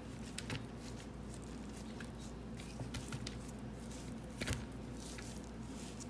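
A water-soaked, expanded soil pellet of fibrous potting mix being broken up with a utensil in a bowl: soft crackly tearing and crumbling of the damp fibres, with one louder knock about four and a half seconds in.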